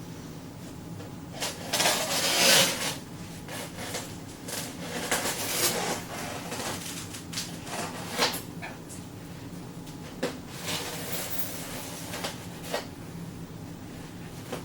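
Statue packaging being handled and pulled apart: irregular rustling and scraping of box material, loudest about two seconds in, with a few sharp clicks later.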